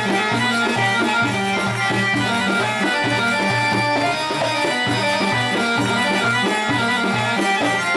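Middle Eastern traditional music for a tanoura dance: a steady drum beat under a held, reedy melody.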